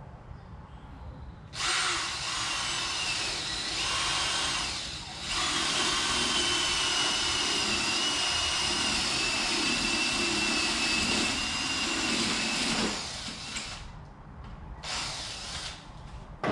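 Cordless drill boring a hole through 3/4-inch plywood with a 3/4-inch paddle (spade) bit, the motor whining under load. It starts about a second and a half in, eases off briefly near five seconds, then runs on and stops about thirteen seconds in.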